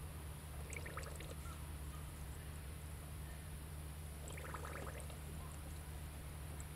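Coolant poured slowly from a plastic jug into a BMW E36's radiator filler neck, engine off, while the cooling system fills before bleeding. It is faint, with two short louder spells about a second in and about four and a half seconds in.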